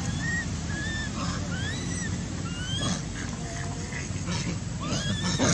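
Baby macaque crying: short high calls, each rising then falling, about two a second, over a steady low background rumble. A sharp click sounds just before the end.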